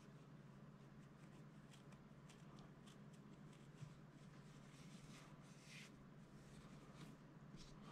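Near silence: faint steady room hum with soft scattered rustles and ticks of a cotton cleaning patch being handled and threaded onto a pull-through cable's brass eyelet.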